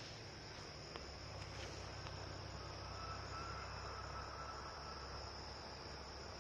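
Crickets chirring in a steady, high continuous chorus, faint, over a low steady rumble.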